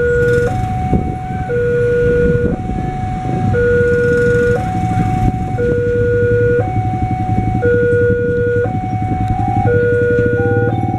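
Railway level-crossing warning alarm from a horn loudspeaker on the signal post: a two-tone signal that alternates a low and a higher tone, each held about a second, repeating steadily while the barrier arms come down. Road traffic and motorbike engines run underneath. Near the end a second alarm at slightly different pitches overlaps it.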